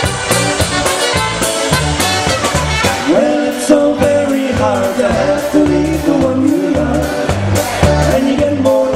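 Live polka band playing a bouncing, even beat on keyboard and drums, with a man singing the lead line from about three seconds in.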